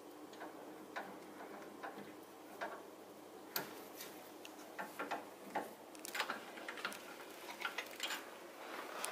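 Irregular light clicks and metallic ticks as the drill press chuck is turned and tightened by hand on a bit. They are sparse at first and come thicker and louder from about three and a half seconds in.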